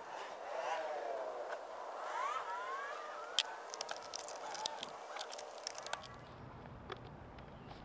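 Sharp clicks and taps of a chainsaw's air filter and top cover being fitted back in place after the filter was cleaned. A rising and falling wailing tone sounds in the background through the first few seconds.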